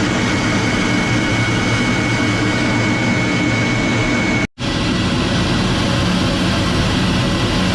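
Jet aircraft engine running steadily with a high whine over a low rumble. The sound cuts out for an instant about four and a half seconds in, then resumes with the whine fainter and slightly lower.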